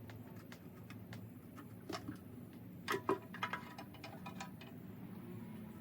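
Faint, scattered clicks and metal clinks of hand tools being worked on the flywheel bolts of an LS1 engine, with a couple of louder clinks about two and three seconds in.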